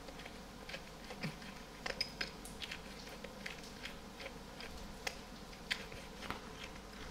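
Metal hand pepper mill grinding whole black peppercorns: a faint, irregular run of small crackling clicks.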